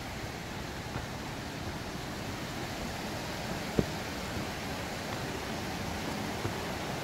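Small rocky river rushing over ledges and little cascades, a steady wash of water noise, with one short knock a little under four seconds in.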